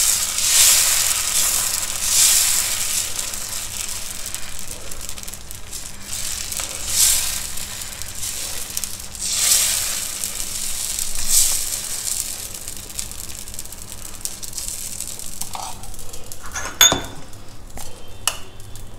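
Dosa batter sizzling on a hot cast-iron tawa as the back of a ladle spreads it out in circles, each stroke bringing a swell of scraping sizzle every couple of seconds. The strokes stop about two-thirds through, leaving a fainter sizzle, and a sharp clack sounds near the end.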